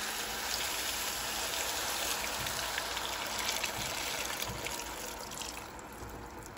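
Milk mixture poured through a wire-mesh strainer into a pan of toasted vermicelli: a steady trickling, splashing stream of liquid that eases off near the end.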